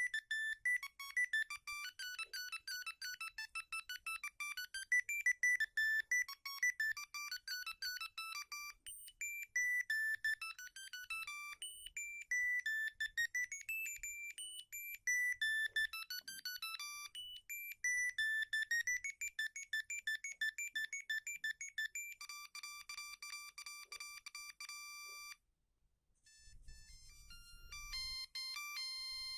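Siemens A50 mobile phone playing a ringtone: a fast electronic melody of short beeping notes. It stops suddenly about 25 seconds in, and a moment later a different ringtone tune begins.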